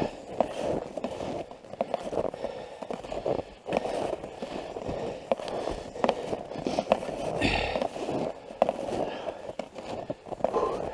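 Footsteps crunching through snow, an uneven series of crunches and small sharp ticks, with a brief louder scuff about seven and a half seconds in.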